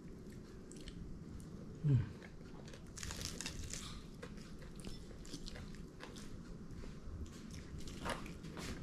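Close-up eating of crispy pan-fried fish: irregular biting, chewing and faint crunching. A short low falling 'mm'-like voice sound about two seconds in.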